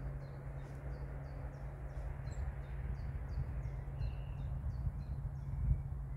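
A small bird singing a short chirp repeated about three times a second, fading out about four and a half seconds in, over a steady low hum and rumble.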